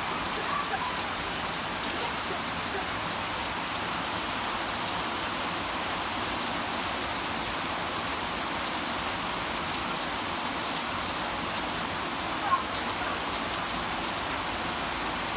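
Steady heavy rain falling, a continuous even hiss of drops on surfaces. A brief sharp sound stands out about twelve seconds in.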